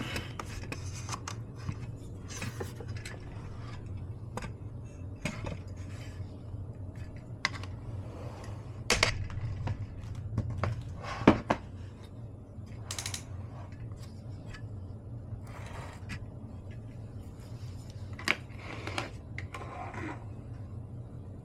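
Utensils clinking against dishes: scattered light clicks with a few sharper knocks among them, over a faint steady low hum.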